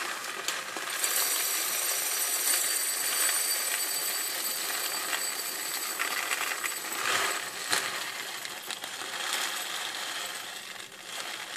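Uncooked rice poured from a plastic bag into a glass tumbler: a steady dry rattle of grains falling onto the glass and the growing pile, easing off near the end.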